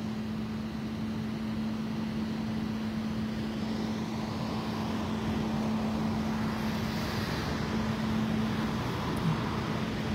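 Idling vehicle engine, a steady drone over general street noise, with a constant hum that drops out briefly near the end.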